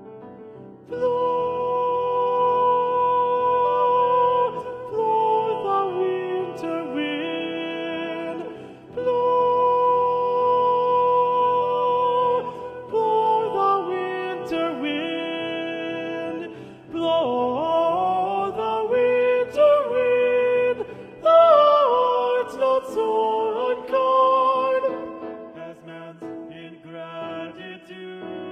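Music: a slow melody of long held notes that slide downward at the ends of phrases, over a soft accompaniment. It grows louder about a second in.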